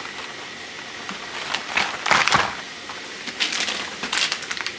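Grocery packaging being handled: two spells of rustling and crinkling, the first about one and a half seconds in, the second near the end.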